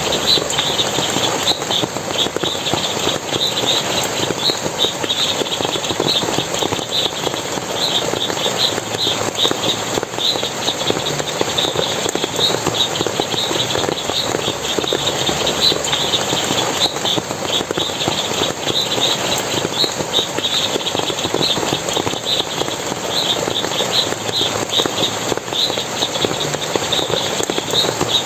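Forest stream water splashing and running steadily, under a continuous stream of short, high chirping calls repeated several times a second.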